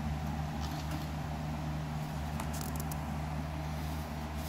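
Steady low hum, with a few faint light taps about halfway through.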